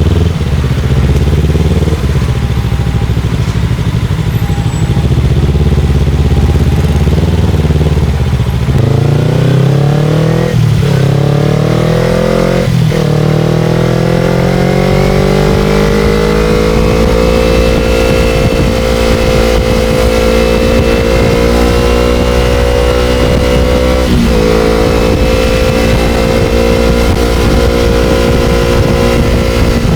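Motorcycle engine running steadily, then accelerating about a third of the way in with two quick gear shifts, its note climbing each time before it settles into a steady cruise. A brief dip in the engine note about three quarters of the way through.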